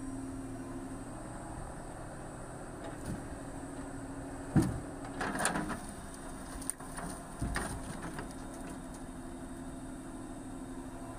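Excavator's diesel engine running steadily while it loads logs onto a logging truck, with one sharp knock about halfway through and several clatters over the next few seconds as logs are set onto the stack.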